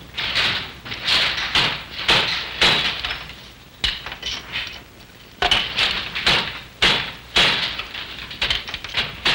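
Wooden handloom fitted with a jacquard head, working and clacking in a steady rhythm of about two sharp knocks a second, with a short lull about four seconds in.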